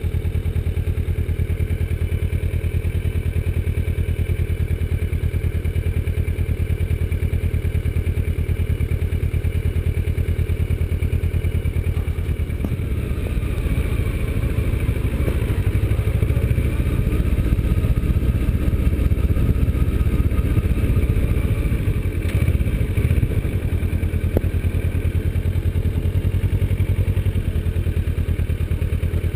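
Kawasaki Versys motorcycle engine running as the bike is ridden at low speed, a steady low throb. It grows louder and rises in pitch through the middle, then eases back.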